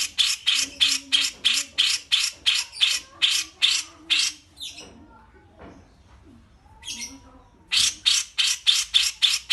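Caged songbirds calling: a fast, even run of harsh chattering notes, about three a second, that breaks off about five seconds in and starts again near the end.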